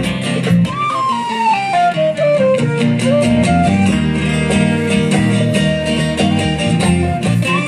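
Live band's instrumental break between verses, with no singing: strummed acoustic guitars and a steady beat under a flute and violin playing a melody that falls and then rises again.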